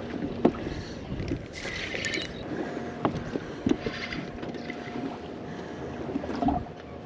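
Water lapping against the hull of a small boat, with wind on the microphone and a few light knocks. A faint steady hum comes in about two and a half seconds in.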